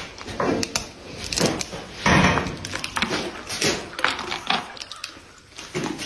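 A camel biting and chewing a spiny cactus pad, with irregular wet crunching and cracking.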